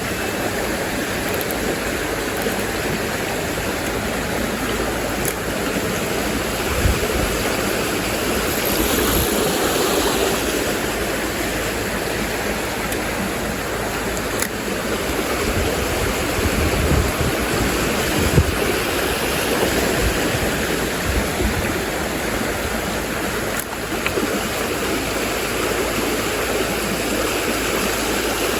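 Mountain stream water rushing over rocks in a steady, even wash, with a few soft low bumps.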